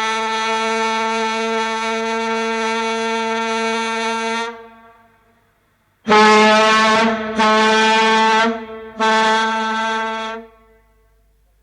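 Ship's horn sounding one long blast on a steady note that trails off about four and a half seconds in, then, after a short pause, three shorter blasts of the same note.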